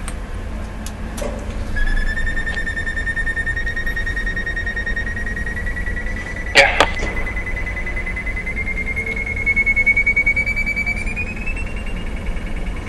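High-pitched whine from a tower crane's drive, starting about two seconds in and rising slowly in pitch as it runs, stepping up once more near the end, over a steady low hum. A sharp click sounds about halfway through.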